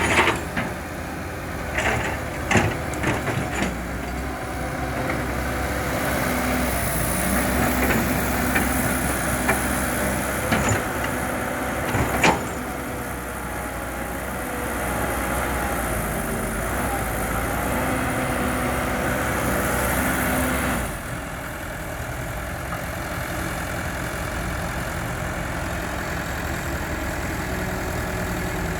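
Heavy diesel earthmoving machinery running steadily, with sharp metallic knocks and clanks in the first twelve seconds or so. About twenty-one seconds in, a hiss drops away and the engine goes a little quieter.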